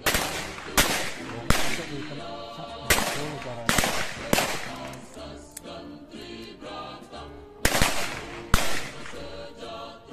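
Handgun shots from a line of shooters firing revolvers and pistols: about eight sharp reports, each with a short ringing tail, coming irregularly with a gap of a few seconds in the middle. Background music with choir-like singing plays under the shots.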